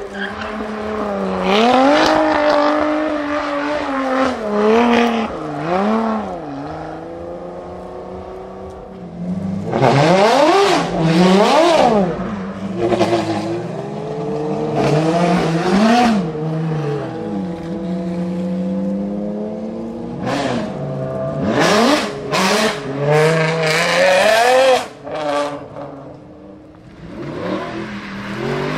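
Supercar engines, among them a Lotus Evora GT430 and a Ferrari FXX K, revved hard and dropping back over and over while the cars spin donuts and powerslide, with tyres scrubbing on the tarmac.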